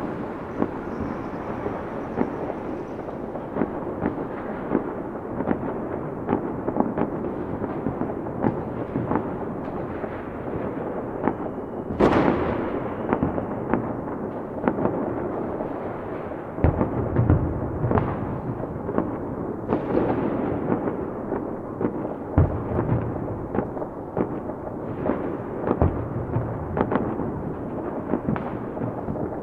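Fireworks going off continuously: a dense crackle of many bangs and pops. There is a big sharp bang about twelve seconds in, and a few deep booms later on.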